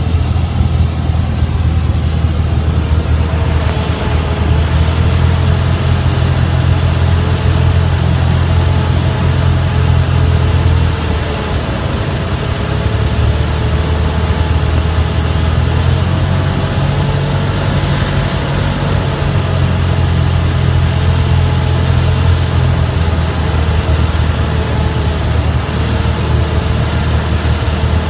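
Single-engine piston airplane's engine and propeller droning steadily, heard in the cabin during the landing approach. The engine note shifts slightly about a third of the way in and again about three-quarters in.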